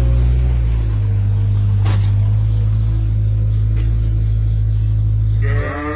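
Engine of a farm vehicle running steadily with a low hum, shifting slightly about a second in and cutting off abruptly near the end, where sheep start bleating.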